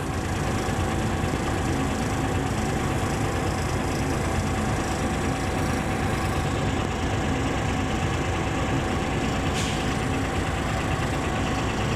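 Volvo excavator's diesel engine running steadily at work, with a thin steady whine over the engine noise. A brief hiss comes about nine and a half seconds in.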